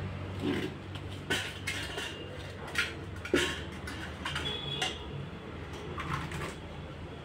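Metal ladle scraping and clinking against a large metal cooking pot as a thick cooked mix is tipped out into a steel pot below: a string of sharp clinks and knocks over a low steady hum.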